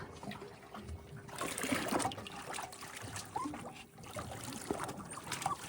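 Water trickling and lapping against a boat's hull, with a few faint short squeaks.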